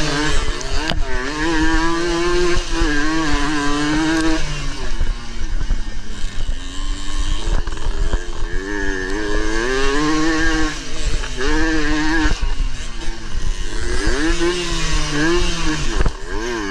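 Suzuki AX100's 100 cc two-stroke single-cylinder engine at racing revs, heard onboard: the pitch climbs through the gears, holds, then drops off and climbs again several times as the rider opens and closes the throttle, with wind noise over it.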